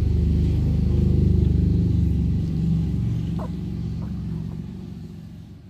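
Domestic cat purring loudly and steadily, a rapid low rumble that fades out near the end.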